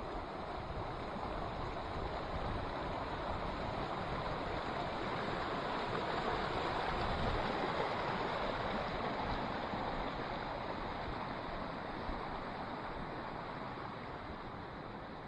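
Mountain creek running over rocks, a steady rush of water that swells to its loudest about halfway through and fades toward the end.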